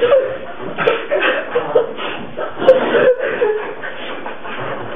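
A group of young men laughing in fits and snickers they are trying to hold in, with two sharp clicks about one and three seconds in.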